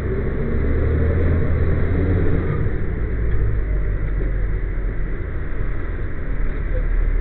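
Fire engine's diesel engine running, heard from inside the crew cab as a steady low rumble.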